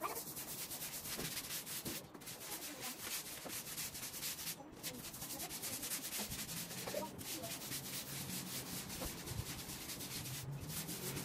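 A brush scrubbing a hard floor in fast, even back-and-forth strokes, stopping briefly three times.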